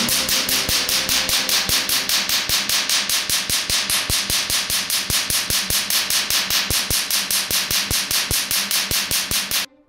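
Q-switched tattoo-removal laser firing rapid pulses into newspaper ink, each pulse a sharp snap, about six a second, in an even train that stops suddenly near the end.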